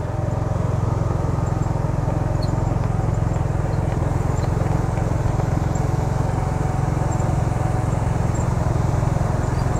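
Small dump truck's engine running steadily under load as it climbs a concrete hill road carrying a mini excavator on its bed.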